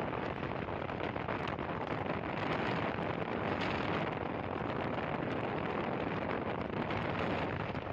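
Steady wind rushing over the microphone of a rider on a moving motorcycle, a dense even roar with no clear engine note standing out.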